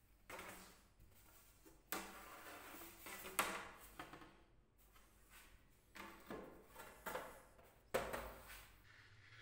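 A thin plywood sheet handled against a wooden table frame: a series of separate knocks and short scraping slides, with the loudest about three and a half seconds in and again near the end.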